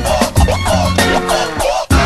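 Hip-hop track playing between rapped lines, the beat and melody carrying on, with a brief drop-out just before the end.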